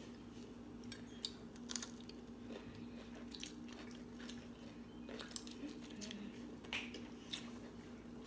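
Close-miked chewing and biting of steamed broccoli: soft, wet chewing with scattered small crunches and mouth clicks. A faint steady low hum runs underneath.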